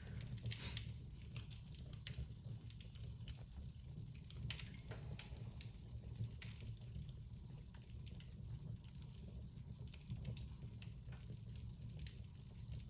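Small fire of a burning cloth-wrapped bundle crackling, with irregular sharp pops and snaps over a low steady hum.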